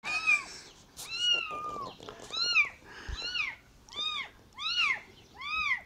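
Kitten meowing over and over, about seven high-pitched meows, each rising then falling in pitch.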